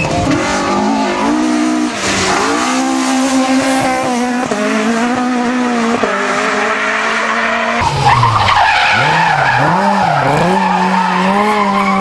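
Rally car engines revving hard through the gears, the pitch climbing and then dropping at each shift. About two-thirds of the way through, the sound changes abruptly to another car whose revs rise and fall a few times before holding high.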